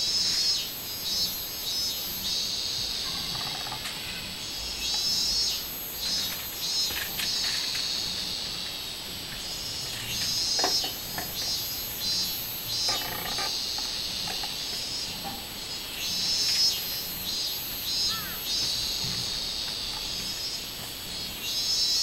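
Robust cicadas (minmin-zemi) singing in the trees: loud phrases of rapid repeated notes that return about every five seconds over a steady high buzz.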